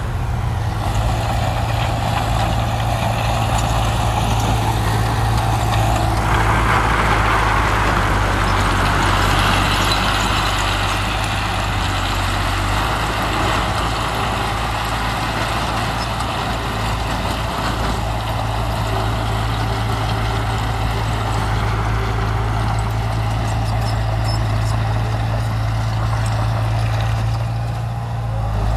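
Heavy diesel earthmoving machinery, a bulldozer and dump truck, running steadily, with the engine noise growing louder for a stretch in the first half.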